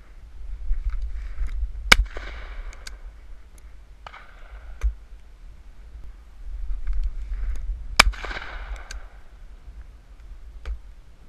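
Shotgun shots: two loud close shots about six seconds apart, with fainter, more distant shots between and after. A low rumble of wind on the microphone runs underneath.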